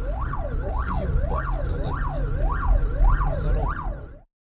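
Emergency vehicle siren sweeping rapidly up and down, a little under two cycles a second, over the low rumble of a car on the road; it cuts off abruptly near the end.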